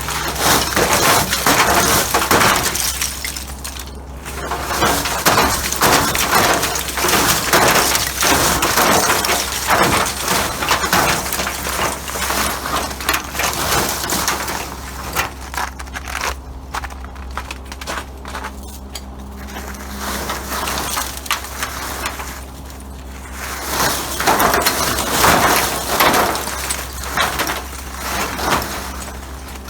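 Irregular crunching and scraping in bouts, several seconds long, with short pauses between, over a steady low hum.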